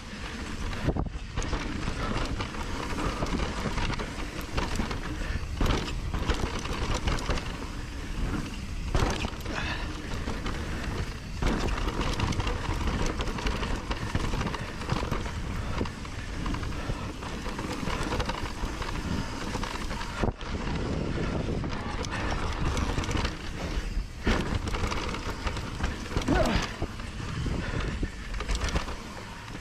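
A Trek Rail 7 electric mountain bike riding fast down a dirt trail: tyre rumble over dirt, roots and rocks, and the bike's frame and drivetrain rattling, with wind buffeting the microphone in uneven surges.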